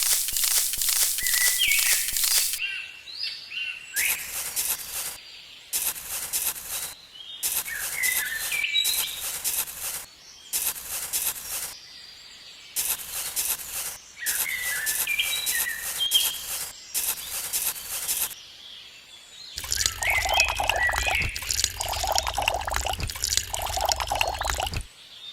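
Birds chirping over a steady high hiss, broken into short sections by abrupt cuts. In the last five seconds a steady low hum comes in, with a mid-pitched tone that swells and fades about every second and a half.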